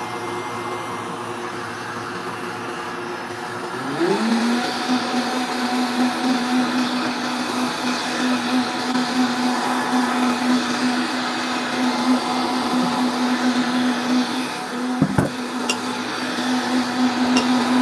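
Countertop blender motor running, blending a liquid mix of ricotta, Greek yogurt and milk. About four seconds in it steps up to a higher speed and holds there as a steady hum, with a brief dip in pitch near the end.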